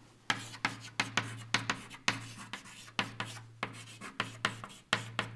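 Chalk writing on a blackboard: quick scratching strokes and taps, several a second, as letters are chalked up. A steady low hum runs underneath.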